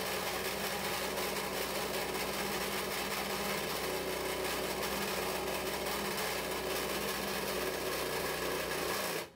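Handheld muscle vibrator running steadily as a vibration table, shaking a mold of freshly poured molten pewter to settle the metal into the fine detail. It is switched off suddenly near the end.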